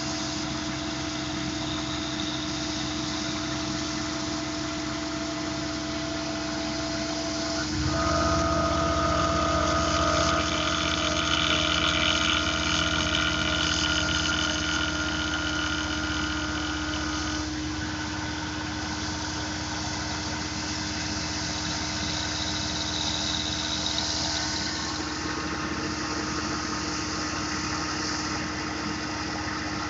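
Tormach PCNC 1100 CNC mill running steadily with a constant hum while a chamfer mill cuts around the outside perimeter of an aluminum part. About eight seconds in the sound gets louder and a higher whine joins it for about ten seconds, then it settles back to the steady running.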